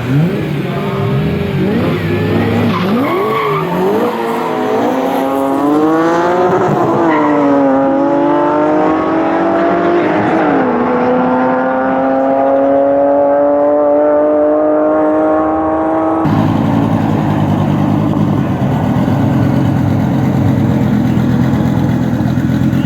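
A drag-racing vehicle's engine at full throttle, its pitch climbing and dropping back with each upshift three or four times as it accelerates. About two-thirds of the way through it cuts abruptly to a lower, rougher engine rumble.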